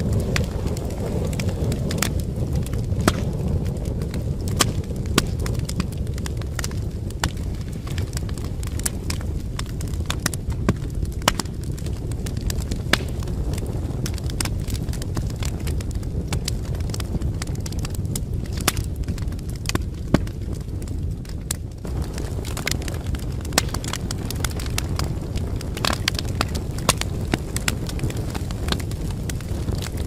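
Wood fire crackling, with irregular sharp pops and snaps, several a second, over a steady low rumble.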